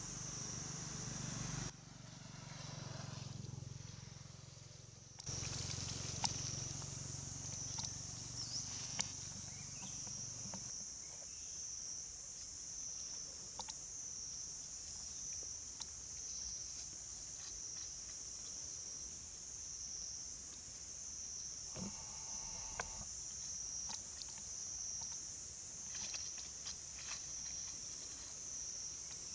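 Steady high-pitched chorus of insects, gently pulsing. A low hum sits underneath for the first third and stops about ten seconds in, and a few sharp clicks are scattered through.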